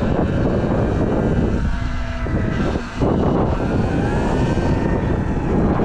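Wind rushing loudly over the microphone of a Sur-Ron Light Bee X electric dirt bike on the move, with the electric motor's faint whine rising and falling under it.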